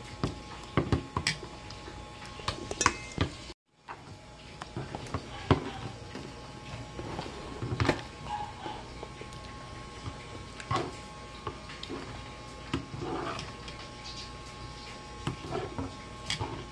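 Metal spoon clinking and scraping in a ceramic bowl while someone eats, in irregular taps and clicks. The sound cuts out for a moment about three and a half seconds in.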